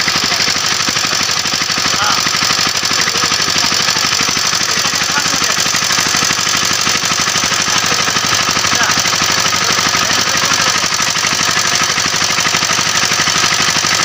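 Walk-behind power tiller's engine running steadily at rest, with a rapid, even knocking beat.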